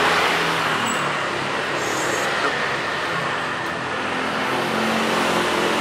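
Road traffic passing steadily, engine and tyre noise running continuously.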